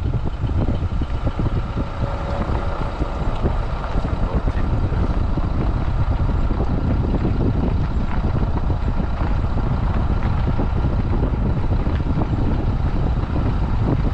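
Steady rumble and road noise of a moving vehicle, with wind noise over it.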